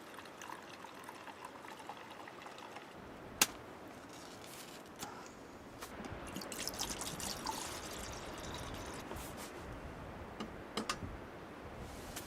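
Liquid pouring and trickling, swelling for a couple of seconds in the middle, with one sharp click about three and a half seconds in and a few lighter clicks near the end.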